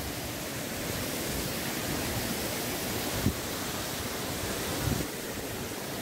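Steady rushing of a fast, rain-swollen mountain stream tumbling over rocks. There are two brief low thumps, one about midway and one near the end.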